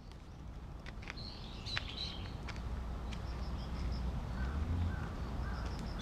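Several birds calling with short chirps and calls, over a steady low rumble; the sound fades in over the first second or so.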